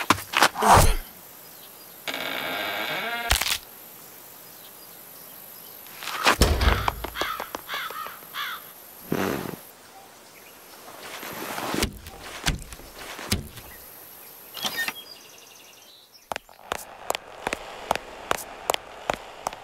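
Cartoon sound effects: a quick run of sharp hits at the start, a pitched tone held for about a second and a half, and scattered scuffles and thumps, then evenly spaced footsteps, about two a second, near the end.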